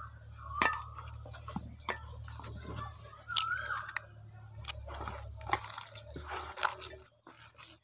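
Hands working in a steel mixing bowl: a few sharp knocks as gram flour is tipped in and an egg is cracked, the loudest knock about three and a half seconds in, then squelching and crunching as the wet puffed-rice batter is mixed by hand. A low steady hum runs underneath.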